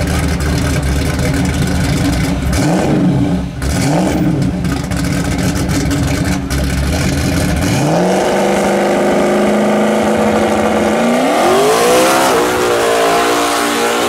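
Car engine idling low and steady, blipped twice a few seconds in, then revved up about eight seconds in and held at high revs, climbing higher again around eleven seconds in.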